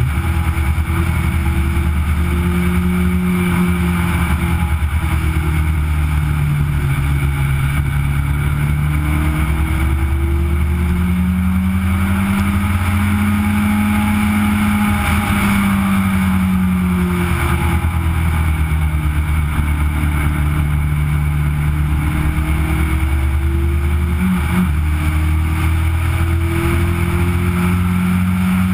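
Onboard sound of a Legend race car's four-cylinder Yamaha motorcycle engine running hard at racing speed, the revs climbing and dropping again and again through gear changes and corners.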